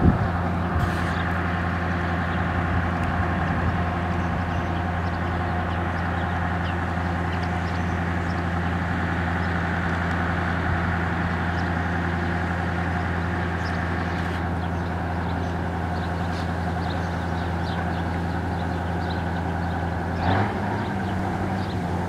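A motor running steadily, a constant low hum with a second tone above it, stepping up slightly about twenty seconds in.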